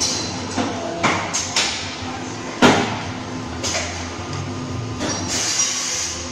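Automated argon-arc (TIG) welding machine at work: a steady hum with several sharp mechanical clunks from the rig, the loudest about two and a half seconds in, and a hiss about five seconds in while the arc burns.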